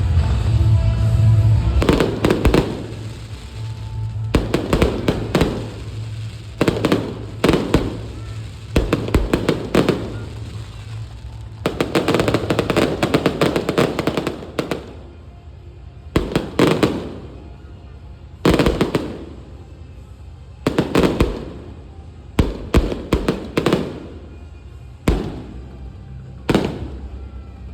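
Aerial fireworks bursting in quick volleys: clusters of sharp bangs, each with a short crackling tail, every second or two. Music plays underneath in the first half.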